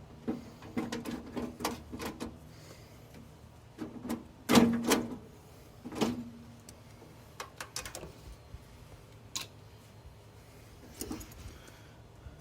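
Clicks, taps and knocks of hand tools and metal parts being handled while the old ignition coil is removed from an engine, with the loudest clatter about four and a half seconds in and another knock a little after.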